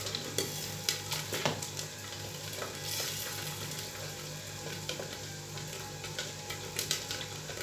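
Caramel milk popcorn sizzling in a gas-heated popcorn kettle as it is stirred, with a steady low hum and scattered sharp clicks; the caramel coating is nearly done.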